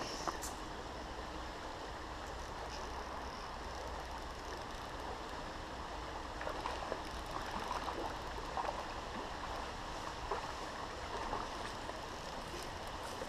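Small stream running steadily over a shallow riffle, an even rush of water.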